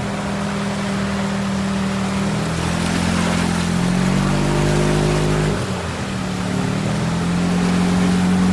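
Gas golf cart engine running hard while the cart pushes through deep water, its pitch dipping and climbing again between about three and six seconds in, over a steady wash of water noise.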